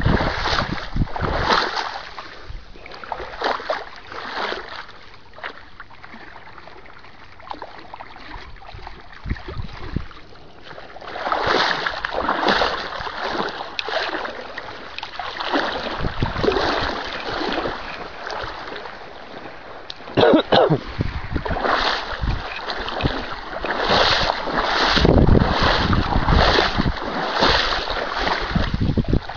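Legs wading through shallow water, a slosh at each stride in a rough rhythm of one or two a second, quieter and sparser for a while in the first half. Wind buffets the microphone underneath.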